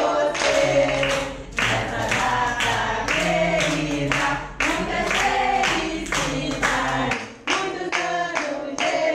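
Group of adults and small children singing a birthday song together, clapping in time.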